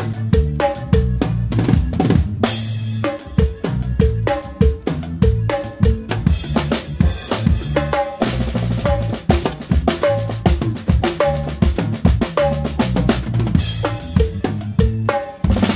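Drum kit played live with sticks: kick drum, snare with rimshots and cymbals in a steady groove, the band's bass and other instruments playing along underneath.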